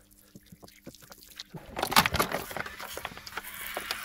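A few small plastic clicks, then from about a second and a half in, water squirting from a squeezed plastic bottle and spattering onto the car's cowl, with crackles from the bottle.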